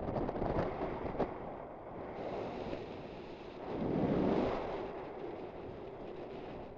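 Wind buffeting the microphone, a rushing noise that swells about four seconds in, with a few sharp clicks in the first second and a half.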